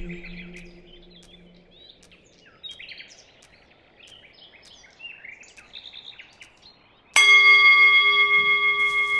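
Birds chirping faintly. About seven seconds in, a hanging metal bell is struck once and rings on with a wavering tone that slowly fades.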